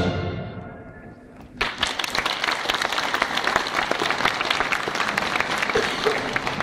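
Orchestral music fades away, and about one and a half seconds in an audience breaks into steady applause.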